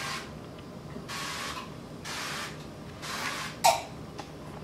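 Aerosol olive-oil spray can hissing in several short bursts, about a second apart, as a pan is greased.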